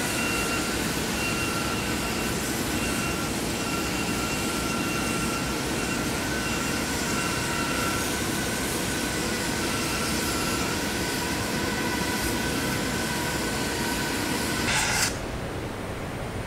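Industrial machinery noise from oil refinery plant: a steady loud roar and hiss with several high whining tones that waver and drop in and out. It cuts off suddenly near the end with a brief click, leaving a quieter hiss.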